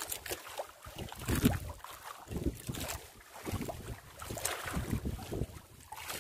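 Wind buffeting the microphone over choppy sea splashing and slapping irregularly against a bamboo outrigger boat.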